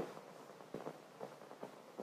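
A near-quiet pause between narrated sentences: faint hiss with a few weak, brief clicks.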